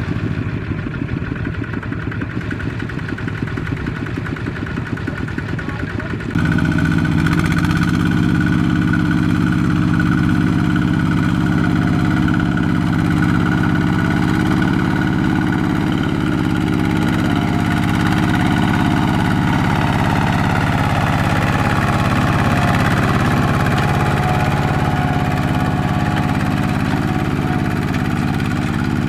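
Two-wheel walking tractor's single-cylinder diesel engine running steadily under load as it pulls a trailer of rice sacks through the paddy and deep mud. About six seconds in, the engine becomes suddenly louder and closer.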